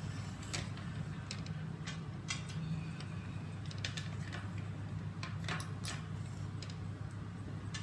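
Plastic parts of a gel blaster being handled and lifted out: scattered light clicks and taps, about a dozen at irregular intervals, over a steady low hum.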